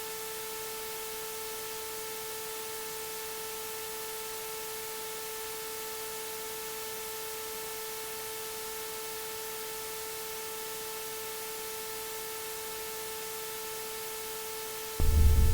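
A steady, unchanging hum on a single pitch with fainter overtones, over a constant hiss. Near the end a much louder, deep rumbling sound starts abruptly.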